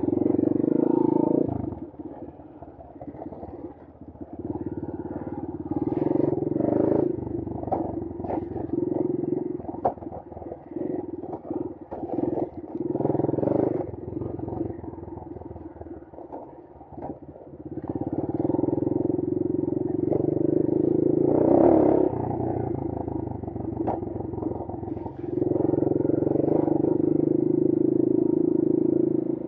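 Brozz 250 trail motorcycle's engine running under way, throttle opening and closing in surges, loudest about two-thirds through, with scattered knocks and rattles from the bike over rough trail.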